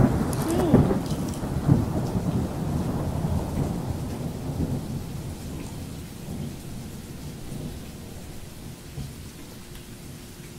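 Close-up crunching and chewing of Doritos and Funyuns, a dense crackly rumble that is loudest at first and gradually dies down.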